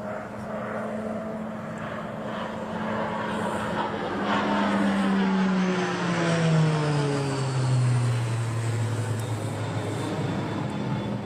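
Texan turboprop trainer flying past low. Its propeller drone drops in pitch about halfway through as it passes, and a faint high turbine whine falls with it.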